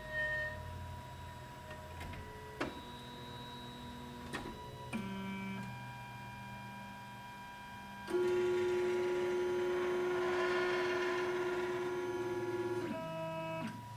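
Flashforge Dreamer 3D printer's stepper motors whining as the print head and build plate move into position for the bed-leveling routine: a series of steady tones that change pitch with each move, with a few clicks between moves. The longest and loudest move runs from about eight seconds in until near the end.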